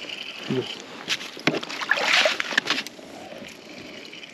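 Water splashing and sloshing in an ice-fishing hole as a hooked crappie is reeled up, with a few sharp clicks from the spinning reel and line; the splashing is loudest about two seconds in.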